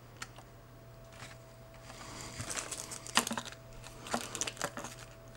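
Plastic packaging rustling and crinkling with several sharp clicks and taps, mostly in the second half, as a robot vacuum's charging dock is unpacked and handled.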